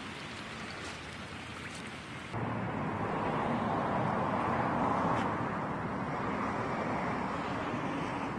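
Rain pattering on wet pavement and curb for about two seconds, then an abrupt cut to a louder, steady rushing noise that swells and slowly eases.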